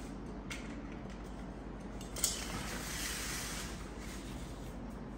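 Plastic hinge lock of a folding bed safety rail clicking as it is released: a faint click about half a second in and a sharper one a little after two seconds. Then about a second and a half of rustling as the fabric-covered rail folds down.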